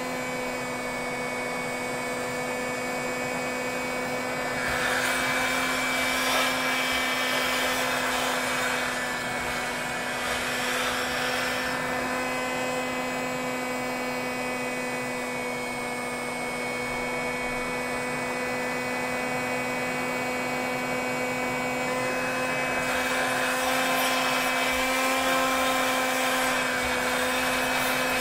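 Heat gun running at 650 °C, its fan motor humming steadily and blowing hot air into an LN2 pot to warm it back up from liquid-nitrogen temperature. The rush of air swells louder twice, for several seconds each time.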